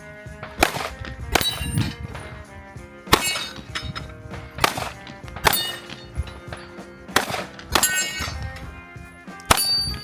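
A string of about eight gunshots at uneven intervals, each strike on the steel plate targets answered by a ringing clang of the steel.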